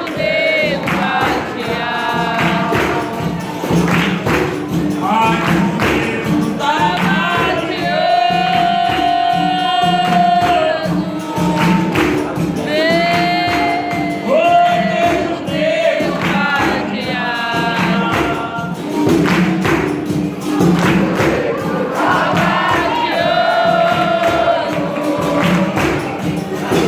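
Capoeira roda music: voices singing a capoeira song together over a steady, even percussion beat with a pandeiro tambourine.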